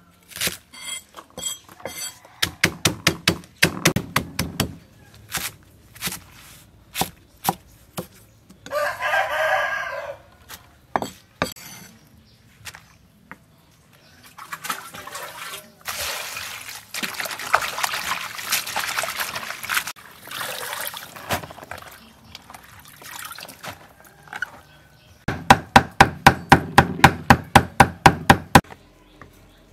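A cleaver chopping on a wooden chopping block, mincing fish, in quick runs of strikes, about four or five a second, loudest near the end. A rooster crows once, about nine seconds in, and in the middle there is a splashing, rustling stretch of cut greens being rinsed in a bowl of water.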